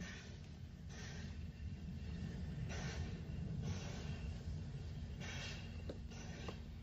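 Steam locomotive working slowly: soft, breathy chuffs of exhaust steam at uneven intervals, about one every second or two, over a low steady hum.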